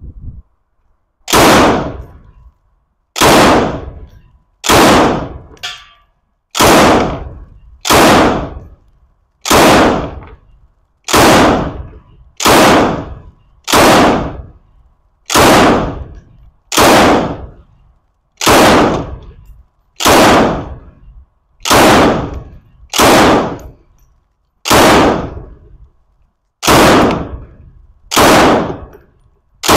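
Semi-automatic UKM belt-fed rifle in 7.62x54R firing Wolf LVE 148-grain light ball. It fires single shots at a steady pace, roughly one every one and a half seconds, about eighteen in all, each followed by a fading echo.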